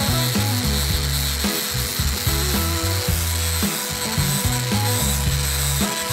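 Background music with a bass line stepping between notes about every second, over an angle grinder sanding an old oak beam.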